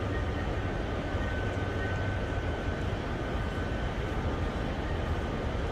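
Steady street ambience with a heavy low rumble that flickers unevenly, like wind buffeting the microphone, and a faint steady high whine above it.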